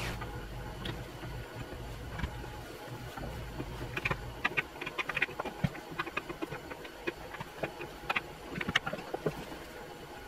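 Handling noise: a series of small clicks and scrapes as a rubber recoil pad is worked onto a wooden shotgun buttstock by hand. Under it, a steady low hum stops about four seconds in.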